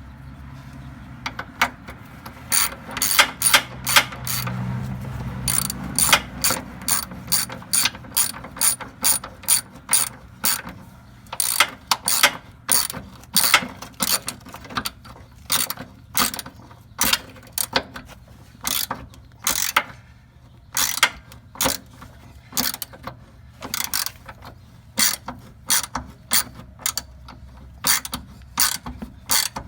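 Hand socket ratchet clicking in quick repeated back-and-forth strokes as a bolt is turned, about two clicks a second.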